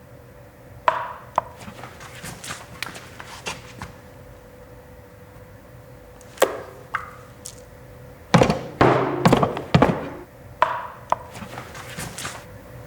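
Foley sound effects made with everyday objects: a run of separate knocks and thunks, then a dense cluster of loud, hard strikes about eight seconds in, with a faint steady hum underneath.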